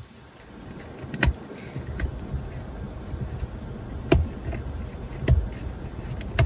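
A few sharp clicks and knocks of car parts being handled and fitted, spread a second or more apart, over a steady low rumble.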